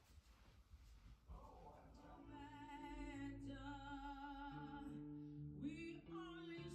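Music with a singing voice that comes in about two seconds in, holding long, slightly wavering notes over lower accompanying notes.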